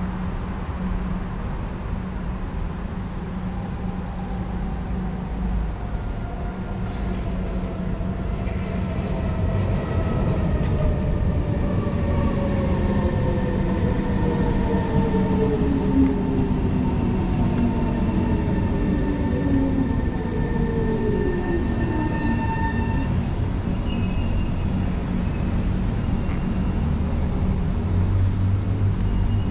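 Singapore MRT train slowing down: the electric traction motors' whine falls steadily in pitch for about fifteen seconds and dies away, over a steady rumble of wheels and running gear.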